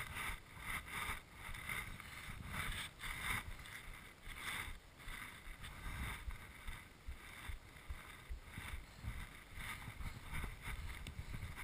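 Skis turning through deep powder snow: repeated soft swishes of snow spray, one every half second or so, with snow hitting the camera.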